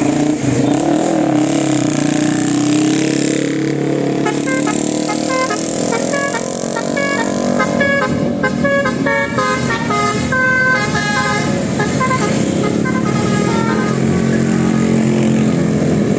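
A bus's basuri telolet horn plays a quick stepped melody of short notes over the steady sound of the bus engine; the tune starts about four seconds in and stops a few seconds before the end.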